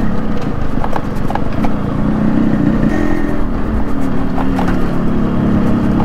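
Yamaha RX100's 98cc air-cooled single-cylinder two-stroke engine running steadily while the bike rides along, with scattered light knocks that fit the 'khat khat' knock of its front suspension.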